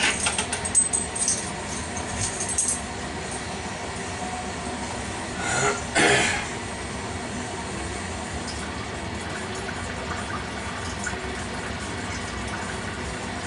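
Clinking and rattling of stainless-steel brewing kettle taps and hose fittings being handled, several sharp clicks in the first few seconds, then a short rushing whoosh about six seconds in, over a steady background noise.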